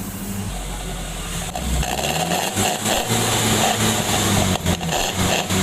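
Suzuki Carry's exhaust through a straight-through SUOS aftermarket muffler, the engine revved up and down in repeated surges with a deep snoring growl ("ngorok").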